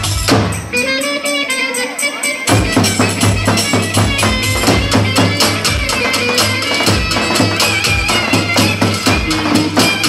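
Loud dance music with a steady beat and fast, even percussion strokes. The bass drops out about half a second in and returns about two seconds later.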